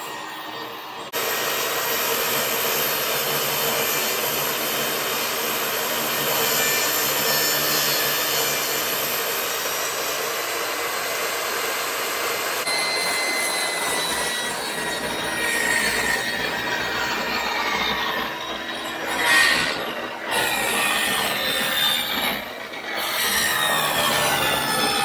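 A saw cutting wood: a steady cutting noise that starts about a second in, turning about halfway through to an uneven, wavering sound with a few louder peaks.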